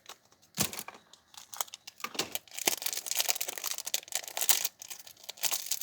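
Gummy candy packaging being torn open and crinkled by hand: irregular crackling and tearing, busiest in the middle.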